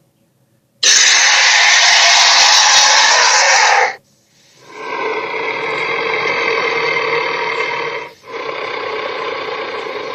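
Creature roar sound effects: a harsh, noisy blast that starts and cuts off abruptly, followed by two longer, steadier-pitched roars with a short break between them.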